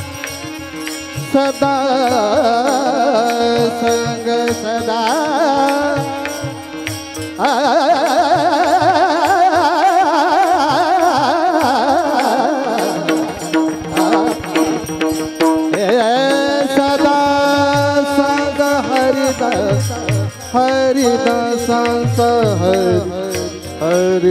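Marathi kirtan music: a chorus of men singing a devotional chant with wavering, ornamented pitch, keeping time on small brass hand cymbals (taal) with a drum beneath. A steady held tone runs under the voices. The singing swells louder and fuller from about seven seconds in to about thirteen seconds.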